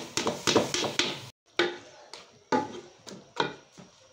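Diced potatoes, peas and carrots tumbling into an aluminium pot of masala, then a wooden spoon knocking against the pot as they are stirred in: a quick string of sharp knocks and clatters, a brief dropout a little over a second in, then a few separate knocks.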